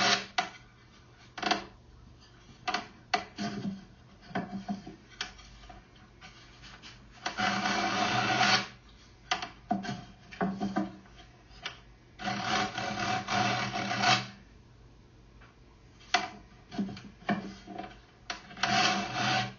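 Sandpaper being pulled through a tenor ukulele's dovetail neck joint, sanding the shoulder of the dovetail so it fits the body's contour: a series of short rasping strokes, with two longer pulls in the middle and another near the end.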